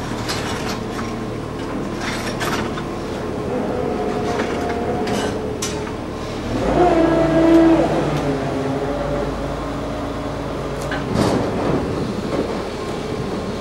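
A crane's engine running steadily as it holds and lowers a locomotive cab, growing louder and higher for a couple of seconds past the middle before settling again, with a few sharp metallic clicks and knocks.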